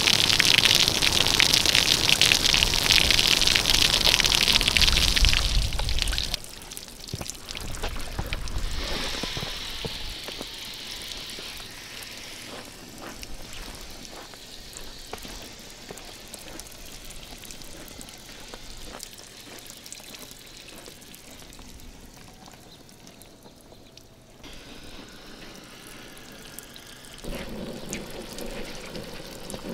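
Water gushing loudly for about six seconds, as when a backyard ice rink is flooded with a hose. It then drops suddenly to a quiet trickle and scattered drips that slowly fade, and picks up a little again near the end.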